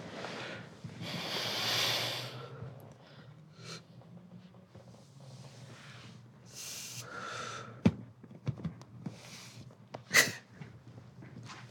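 A person breathing out in a long, heavy sigh about a second in, then several softer breaths, with a few sharp clicks later on.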